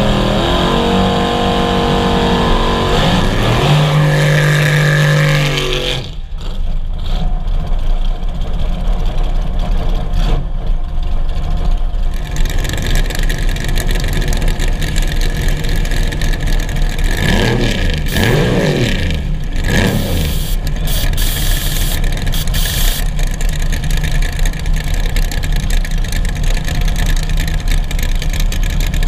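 Drag car's V8 engine running at the starting line: it revs in the first few seconds, then settles to a loud, steady idle, with a few quick throttle blips rising and falling about two-thirds of the way through.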